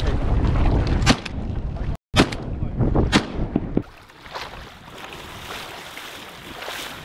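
Heavy wind buffeting the microphone, broken by three sharp shotgun shots about a second apart. From about four seconds in it drops to quieter wind and water.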